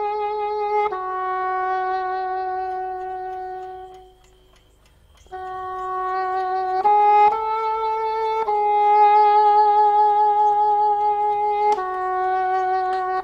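Film score music: a slow melody of long held notes on a solo wind instrument. It breaks off briefly about four seconds in, then resumes.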